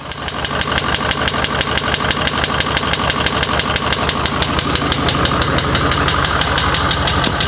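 International Harvester DV550 V8 diesel engine running at a steady speed, a fast, even beat of firing pulses, fading in over the first second.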